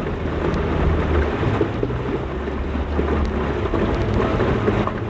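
Small boat under way on a river: its outboard motor runs steadily under a dense rumble of wind buffeting the microphone, with wash from the water.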